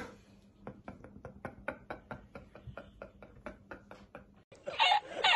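Quiet stifled laughter in short breathy pulses, about five a second, breaking into louder laughter near the end.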